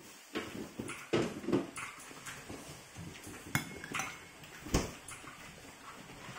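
Close mouth sounds of eating noodle soup: chewing and slurping. A metal spoon clinks once against a ceramic bowl about halfway through, and a dull knock follows about a second later.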